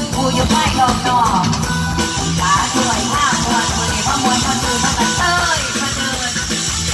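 Live Isan toei song played loud through a PA by a band with a steady beat, a woman singing the melody.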